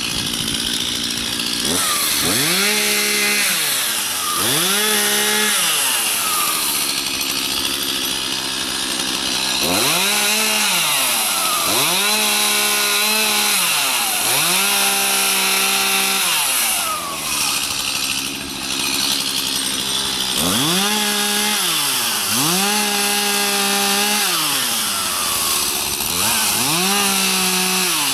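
Stihl MS251C two-stroke chainsaw cutting through small dead limbs. The engine revs up for each cut and drops back between cuts, about eight times over.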